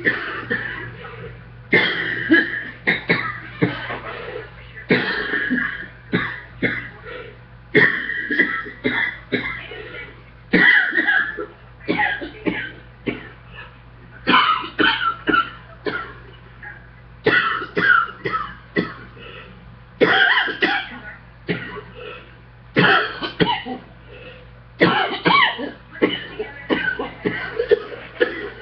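A woman coughing in repeated fits after a treadmill workout, a cluster of several sharp coughs every two to three seconds with short gaps between.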